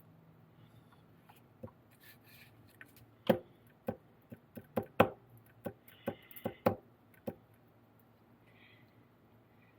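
A quick run of about a dozen sharp clicks and knocks from small hard parts and tools being handled on a work surface, bunched in the middle, with a faint steady hum underneath.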